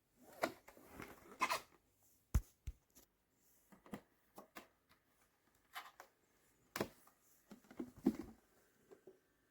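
Irregular handling noise: scattered light knocks, clicks and rustles of objects being moved and set down, with pauses in between.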